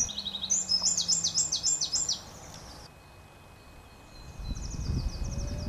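Small songbird singing: a quick run of high, downward-sweeping notes lasting about two seconds, then a fainter, faster phrase near the end. A low rumble rises under the second phrase.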